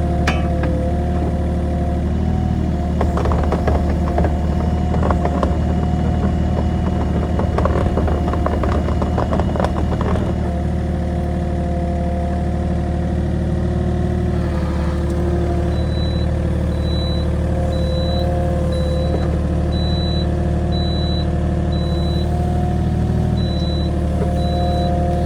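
A heavy machine's engine runs steadily under load. For several seconds early on there is a stretch of clattering and cracking, like wood or branches being handled. From partway through, a warning alarm sounds a regular series of short high beeps, a little more than one a second.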